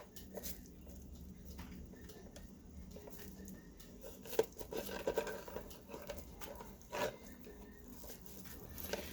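Light clicks, taps and rattles of plastic appliance parts being handled and fitted together during reassembly, with a few sharper clicks about four and a half and seven seconds in.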